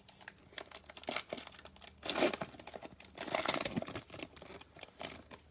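Foil trading-card pack wrapper crinkling as it is torn open and handled, in irregular crackly bursts, loudest about two seconds in and again around three and a half seconds.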